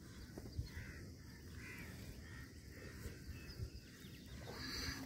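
Faint outdoor ambience with a low steady rumble and a few distant bird calls, about one every second.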